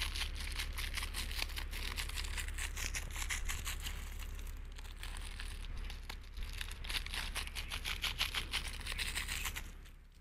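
Small plastic spice packet crinkling and rustling in the fingers as five-spice powder is shaken out of it, a dense run of fine crackles that fades away near the end. A steady low hum runs underneath.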